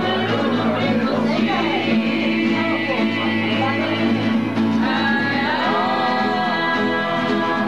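Music with singing: a voice sings over steady sustained chords from an instrumental accompaniment that includes acoustic guitar.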